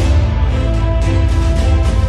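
Background music: held synth-like notes over a heavy, steady bass with a regular beat.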